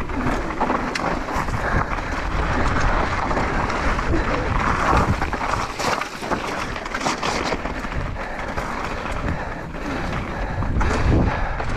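Mountain bike descending a rocky trail, its tyres crunching over loose stones and the frame and parts rattling with frequent irregular knocks, with wind buffeting the microphone.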